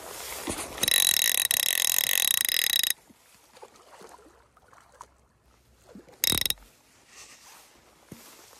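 Fly reel's click-and-pawl drag buzzing as line is pulled fast off the spool: one long run of about two seconds, then a short one about six seconds in.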